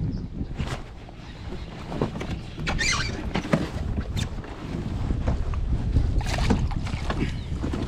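Wind rumbling on the microphone on a kayak, with a few short splashes and knocks, the strongest about three seconds in and again near six seconds.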